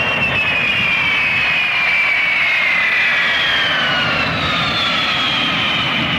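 Boeing 747 jet engines as the airliner comes in to land: a loud, steady rush of jet noise with a high whine that falls steadily in pitch.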